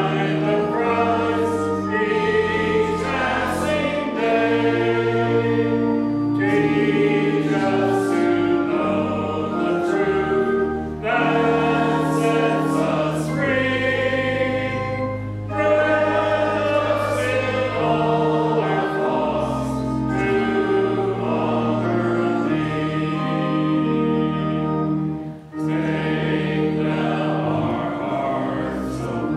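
A congregation singing a hymn together over held instrumental chords, phrase by phrase, with brief pauses between phrases about 11, 15 and 25 seconds in.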